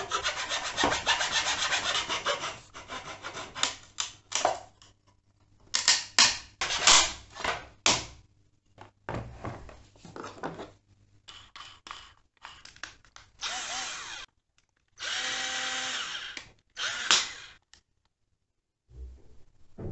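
Hacksaw strokes cutting through a wooden plank in quick succession, followed by separate clatters and scraping of wood and tools being handled. Two short runs of a cordless drill's motor give a steady whine about two-thirds of the way in.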